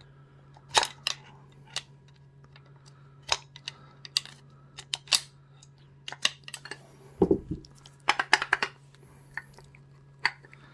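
Irregular sharp metal clicks and scrapes of a screwdriver working inside an old cast-metal drill motor housing, prying at the spring clips that hold the field wires to the brush guides. A duller knock comes about seven seconds in, followed by a quick run of clicks.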